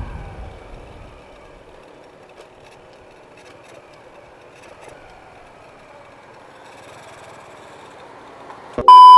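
Motorcycle slowing and rolling in at low revs, quiet under faint traffic noise, its low rumble dying away in the first second. Near the end, a loud steady electronic beep of under a second cuts in and stops sharply.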